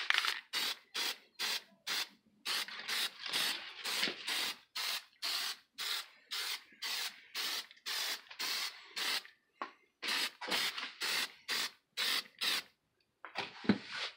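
Aerosol can of white Plasti Dip hissing in short spurts, about two a second, with a brief pause and one more spurt near the end. The quick spurts spatter speckles rather than a wet coat, building up a pebbled, leather-like texture.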